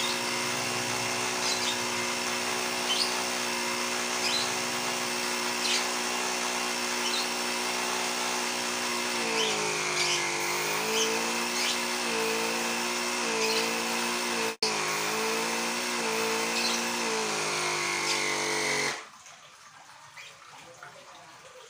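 Mini car tyre-inflator air compressor running steadily as it feeds an airbrush; from about nine seconds in its hum repeatedly sags and recovers in pitch as the load changes. It cuts off suddenly near the end.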